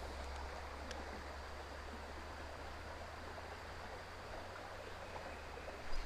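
Steady, faint hiss of flowing creek water, with a single faint click about a second in.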